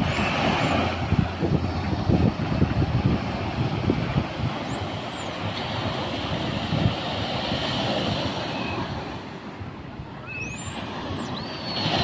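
Small waves breaking and washing up a sand beach, a steady surf hiss, with wind buffeting the microphone in irregular low thumps during the first half. A faint high whistle sounds twice.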